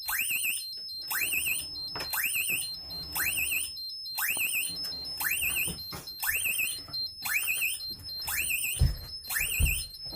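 Fire alarm sounding, partly muffled by tape stuck over its sounder: a quick rising whoop that breaks into a high warble, repeating about once a second, over a steady high tone.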